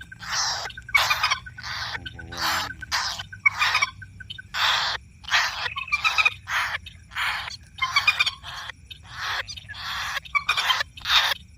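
Common moorhen calls, harsh and noisy, repeated about twice a second: the moorhen lure call used to draw the birds in.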